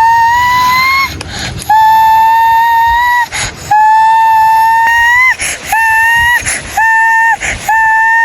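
A whistle blown in a series of long, steady high notes, each lifting slightly in pitch as it ends, the later ones shorter.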